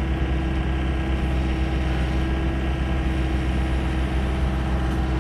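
The engine of a heavy machine, idling steadily with a constant low drone while a heavy piece is eased down.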